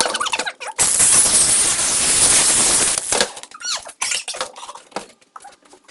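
A power cutting tool cutting into a camera body in one loud, harsh burst of about two and a half seconds, starting about a second in. Short, high squeaky whines come before and after it.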